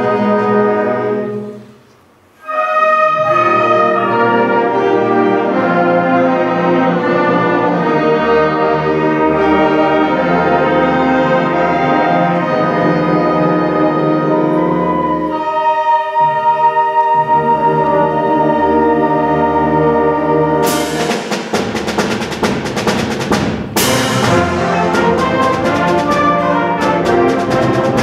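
High school concert band playing, brass to the fore over woodwinds. The band cuts off for about a second near the start and then comes back in. About three-quarters of the way through, rapid percussion strokes join the band.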